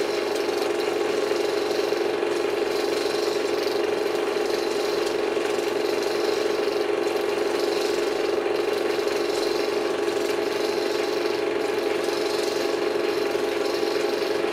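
Projector running with a steady, unchanging hum, strongest in a low-middle drone.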